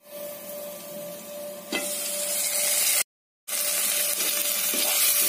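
Chopped vegetables sizzling in oil in a kadai: quieter at first under a glass lid, a single clack just under two seconds in, then a steady, louder sizzle. The sound drops out completely for a moment about three seconds in.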